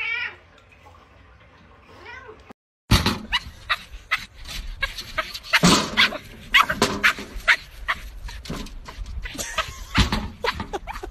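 A cat's short meow, and a second fainter call about two seconds in. After a brief break comes a louder, dense run of irregular knocks and clatters.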